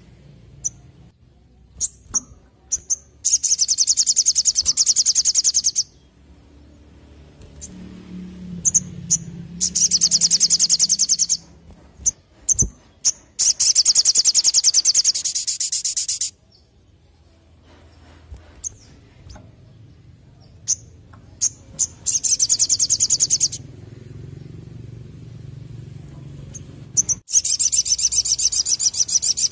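Olive-backed sunbird (sogon) singing: a few short, sharp chips, then a rapid, high trill lasting about two seconds. The phrase comes five times.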